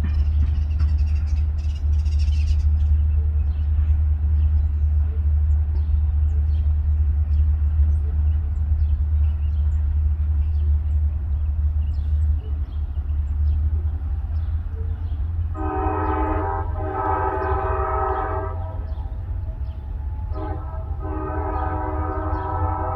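CSX diesel freight locomotive running with a deep, steady low rumble. Its air horn blows a short blast and then a longer one about two-thirds of the way through, and starts another long blast near the end.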